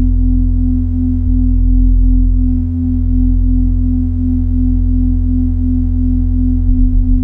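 Minimal electronic drone music: steady sine-like tones over a deep bass hum, the main tone wavering gently about four times a second. A fast low throb sets in near the end.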